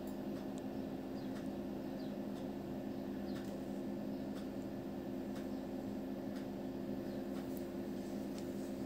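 Steady low hum with a faint hiss under it, the background tone of a recording made between narrated lines, with a few faint ticks scattered through.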